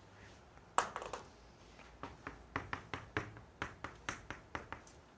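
Chalk knocking on a blackboard as characters are written: one louder knock about a second in, then a quick run of short sharp taps, three or four a second, from about two seconds on.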